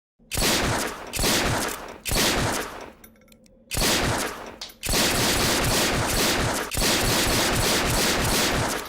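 Gunfire sound effect: four short bursts of automatic fire, then two long continuous bursts in the second half. Light metallic clicks sound in the lull about three seconds in.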